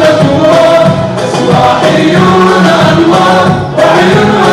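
Male vocal group singing an Arabic nasheed (celebratory chant song) together into microphones, several voices in unison.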